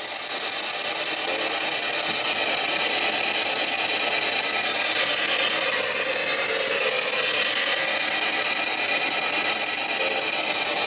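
P-SB7 spirit box sweeping through radio frequencies: a continuous hiss of radio static.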